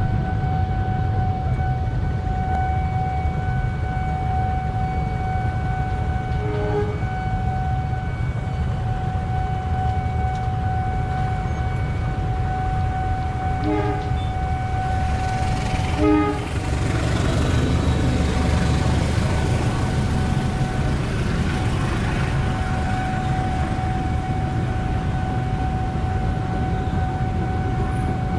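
A train running close by with a heavy low rumble, its rushing wheel noise swelling for several seconds past the middle. A steady high tone sounds under it for most of the time, with a few short blips.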